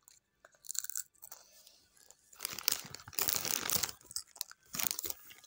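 Doritos tortilla chips being crunched and chewed close to the microphone, in irregular bursts, the longest and loudest from about two and a half to four seconds in.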